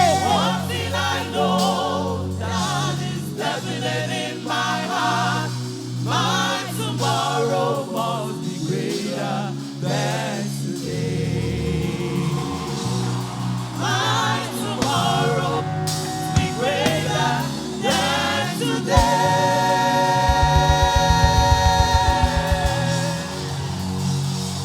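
Gospel choir singing with band accompaniment over sustained keyboard and bass notes. Near the end the song settles on a long held chord over a rapid low drum roll.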